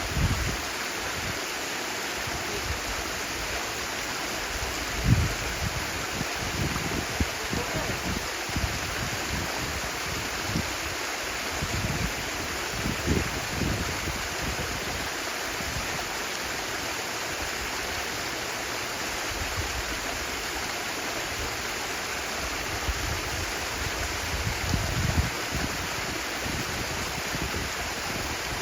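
Stream water flowing steadily, a continuous rushing and babbling, with a few louder low swells, the strongest about five seconds in.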